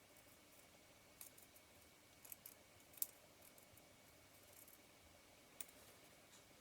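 Near silence broken by a few faint, sharp clicks and light scrapes of small metal lens parts handled by hand, the loudest about three seconds in, as an Ai-Nikkor 24mm f/2.8 lens's helicoid is marked and worked loose.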